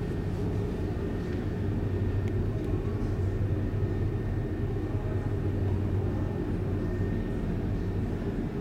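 Steady low drone of a car ferry's engines and onboard machinery, heard inside the ship, with a deep hum that swells a little in the middle.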